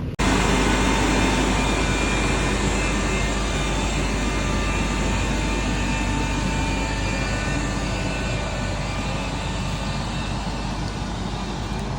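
Tractor engine running at a steady speed, a constant low drone with an even wash of mechanical noise.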